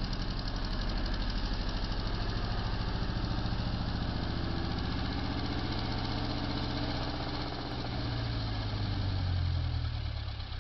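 Kawasaki FX400R motorcycle's inline-four engine running at a fast, pulsing idle through its exhaust. The revs rise gently a few seconds in, dip, then rise again near the end.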